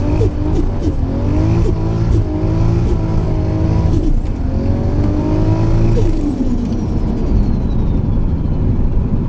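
Turbocharged car engine under hard acceleration, its note and a high turbo whistle climbing, breaking off briefly several times and climbing again. About six seconds in the engine note drops away and the turbo whistle winds slowly down.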